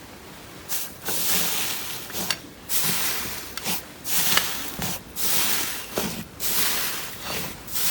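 Slime being squeezed and pressed by hand, a crackly, hissing squish about once a second.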